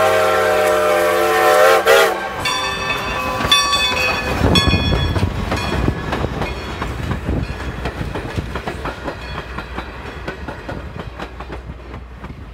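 Strasburg Rail Road No. 90 steam locomotive's whistle sounding a steady chord that cuts off about two seconds in. Then the train's cars roll past close by, their wheels clicking over the rail joints, and the clatter fades away toward the end.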